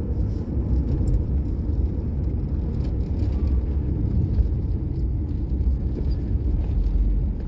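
A car driving along a town street: steady low engine and road rumble.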